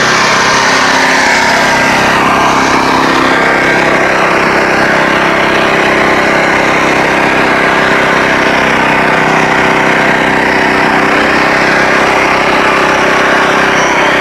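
An engine running steadily at a constant speed, loud and close, with no change in pitch.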